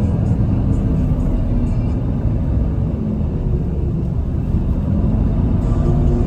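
Steady low rumble of a moving city bus heard from inside the cabin: engine and road noise.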